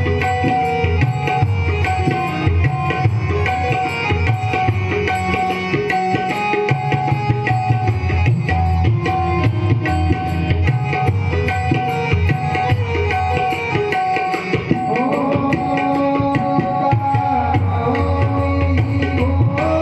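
Tabla playing a dense, fast stream of strokes under a sustained melodic accompaniment, in a devotional song with no singing; gliding melodic lines come in about fifteen seconds in.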